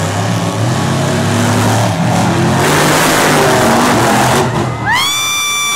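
Monster Jam trucks' engines revving hard during a race, the pitch rising and falling, with a loud noisy surge of engine and dirt around a truck's jump. Near the end a strong steady high tone starts with a quick rise and holds for about two seconds.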